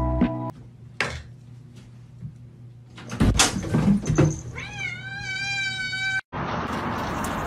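Domestic cat jumping onto a counter with a few knocks and scuffles, then giving one long meow of about a second and a half that rises at the start and then holds its pitch. Near the end a steady rushing hiss cuts in suddenly.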